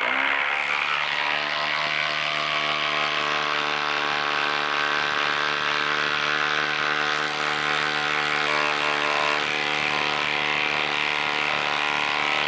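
Milwaukee M18 Fuel impact driver hammering steadily as it drives an 8-inch lag bolt into tough wood under heavy load.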